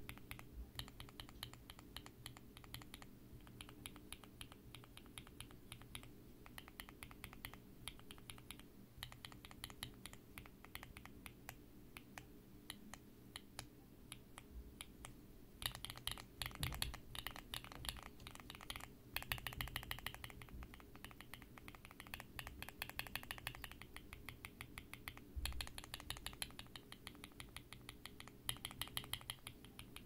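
Gateron Pro Glory Red linear switch in a switch tester, pressed fast and over and over under an ABS keycap: a quick run of light plastic clacks as the switch bottoms out and returns, tested for spring ping. The clacks get louder and denser from about halfway through.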